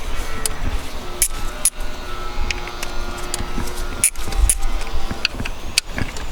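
Scattered metallic clicks and clinks of hand tools undoing the hex bolts that hold the ignition coils on a car engine, over a steady low rumble.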